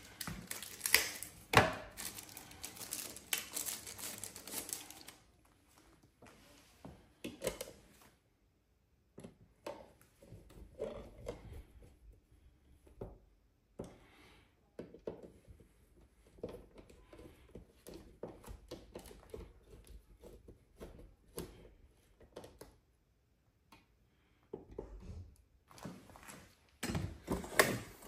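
Plastic packaging crinkling for the first five seconds or so as a wall plate is unwrapped, then scattered light clicks and taps of the plastic plate being fitted over a GFCI outlet and screwed on by hand.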